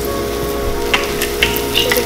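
Chickpea and kidney bean patties sizzling in oil in a frying pan, with a few sharp crackles about a second in.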